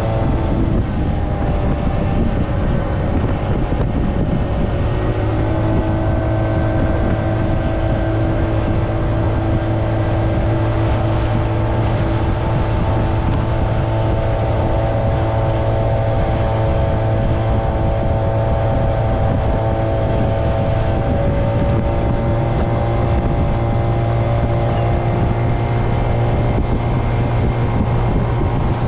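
Italika D125 mini scooter's 125cc engine running steadily under way. Its pitch drops near the start, rises a little a few seconds later, and then holds mostly steady with small shifts in engine speed.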